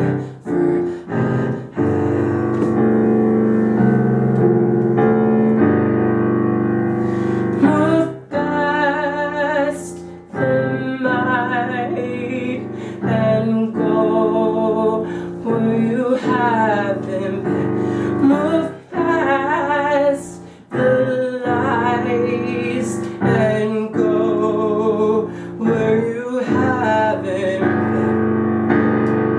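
A male singer-songwriter's live song on electric keyboard. Sustained chords play alone at first. From about eight seconds in, he sings long held notes with vibrato over them.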